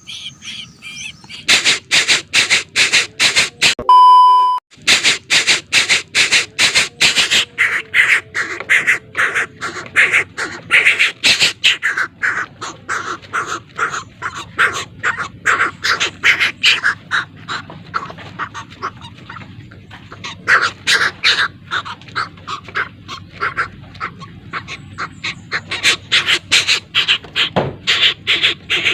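Bird-of-prey chick begging to be fed, giving a long run of rapid, repeated high calls, about two to three a second. A short loud electronic beep cuts in about four seconds in.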